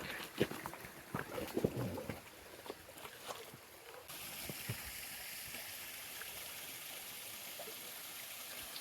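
Scattered knocks and rustles for about four seconds, then a steady rush of creek water that starts abruptly and holds evenly.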